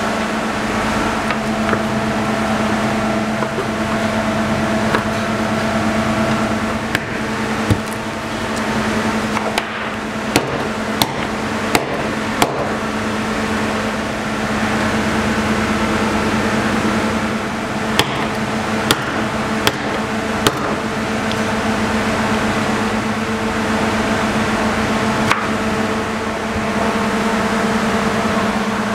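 Steady mechanical hum with a low drone and a few higher held tones, under scattered sharp knocks and clicks that come in two groups, about a third of the way in and again a little past the middle.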